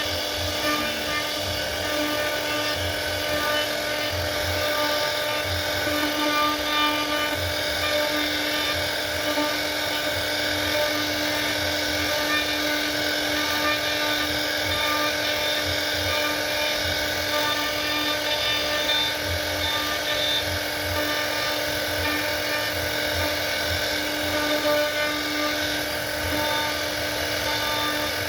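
CNC router spindle running at a constant speed, giving a steady whine with an unchanging pitch, over irregular low thumping from the machine.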